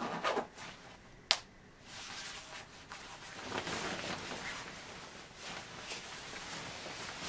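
Rustling of a ski jacket's fabric as it is pulled on and adjusted, with one sharp click about a second in.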